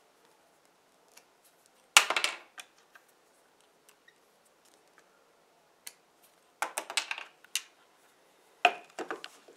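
Steel combination pliers, being reworked into hog-ring pliers, clicking and clattering as they are handled: three bursts of quick metallic rattles, the loudest about two seconds in, the others in the second half.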